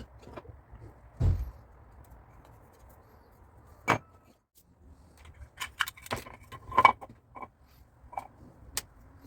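Stainless steel whisk and strainer parts clinking and knocking as they are handled and fitted together: a dull knock about a second in, a sharp metallic click near four seconds, then a cluster of clinks with brief ringing between about six and seven and a half seconds.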